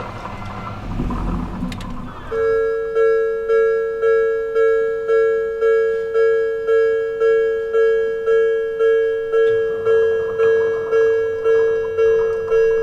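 The tail of a passing electric train's rumble fades, then about two seconds in a Japanese level crossing's electronic warning bell starts ringing, a steady 'kan-kan' strike about twice a second, warning of an approaching train. A faint low rumble builds underneath near the end.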